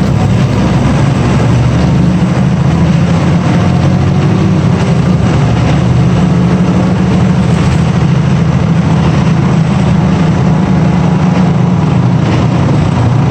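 A public bus's diesel engine running with a steady, loud low drone.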